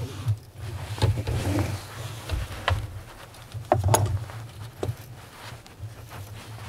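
Scattered clicks and light metal knocks from a ratchet wrench and gloved hand loosening an alternator mounting bolt, the loudest a pair of sharp clicks about four seconds in, over a low steady hum.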